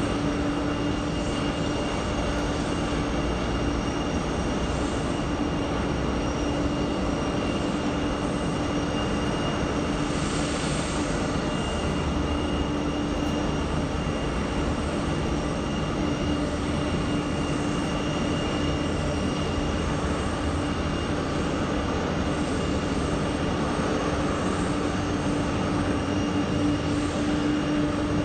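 Boeing 787 jet engines running at taxi idle: a steady whine over a low hum, holding an even level throughout.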